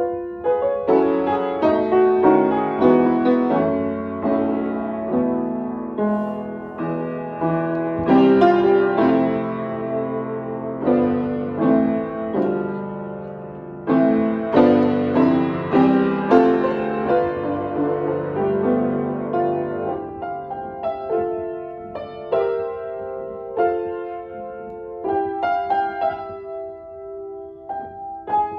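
Upright piano played solo: chords under a melody, the notes struck and left to ring. The playing is full for most of the piece and thins to fewer, longer-held notes near the end.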